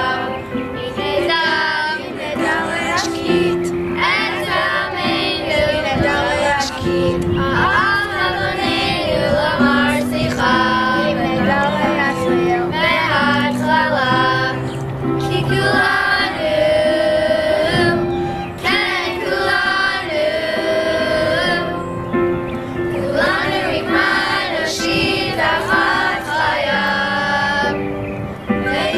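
A group of young voices singing a slow song together, over held instrumental notes underneath.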